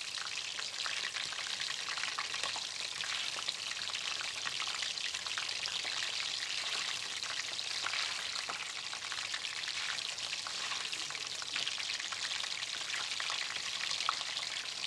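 Battered shrimp deep-frying in hot oil in a stainless steel wok: a steady sizzle with fine, even crackling.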